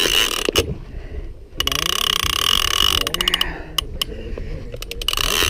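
Large conventional saltwater fishing reel being cranked close to the microphone: gears whirring and clicking in spells of a second or two, with short pauses between, as line is reeled back in.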